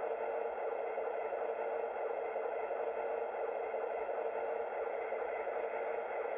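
A steady, even hum with one constant mid-pitched tone running through it.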